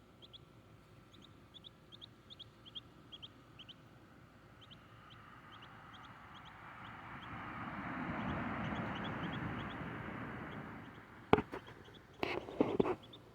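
Muscovy duckling peeping: short, high, rising cheeps repeated a couple of times a second. A rushing noise swells and fades in the middle, and a few sharp knocks near the end are the loudest sounds.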